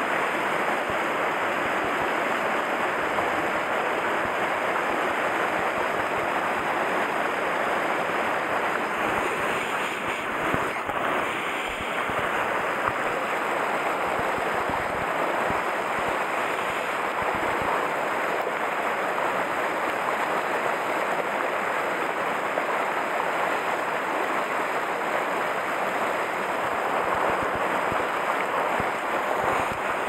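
A mountain stream rushing over rocks in a small cascade: a steady rush of white water.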